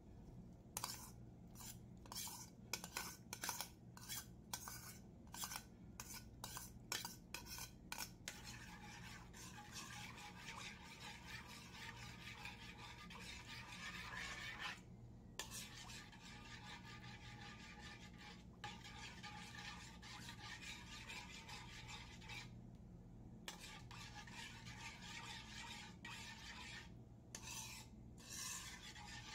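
Metal spoon scraping against a metal pan while stirring grated cheese into a milky sauce: a run of quick short scrapes and taps for the first several seconds, then steady stirring scrapes with a few brief pauses.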